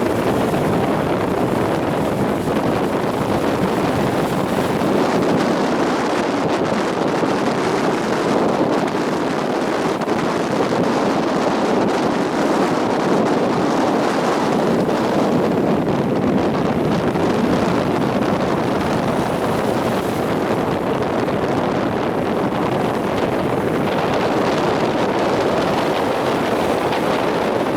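Strong wind blowing across the microphone together with breaking storm surf: a steady, dense rush of noise without a pause.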